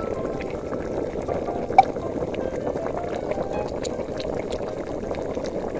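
Water boiling: a steady, dense bubbling, with one brief sharper tick about two seconds in.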